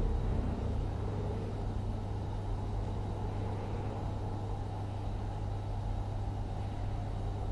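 Steady background ambience: an even low rumble with a constant hum and no distinct events.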